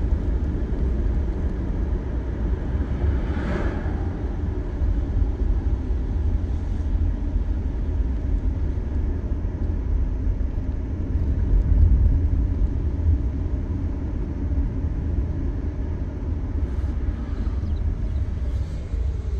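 Road noise of a car cruising at highway speed: a steady low rumble of tyres and wind heard from inside the car, with one brief louder swish about three and a half seconds in.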